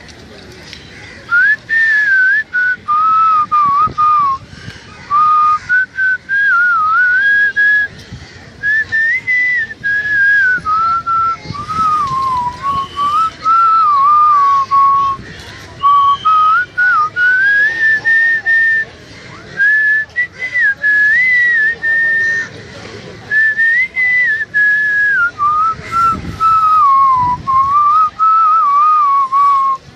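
A person whistling a tune: a single clear melody line moving up and down in short phrases with brief pauses for breath.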